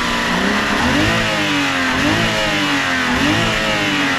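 BMW engine, running with its cover off, revved twice: the pitch climbs and falls back, peaking about two seconds in and again near the end. The revving is part of listening for a knock the mechanics call 'tygdyk', which they suspect comes from the rattling cover or a loose pulley.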